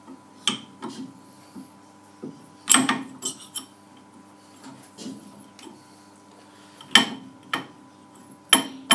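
Steel alignment bar of scrap hydraulic rod being worked through bushes in the bores of a cast part, metal knocking and clinking on metal. Irregular sharp knocks and short scrapes, three of them much louder than the rest.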